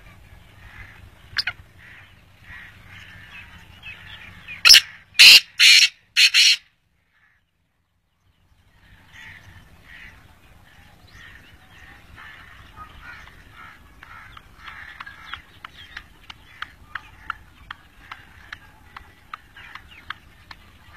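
Black francolin calling: a run of four loud, harsh, grating notes about five seconds in. In the second half comes a quick series of short ticking notes, about three a second.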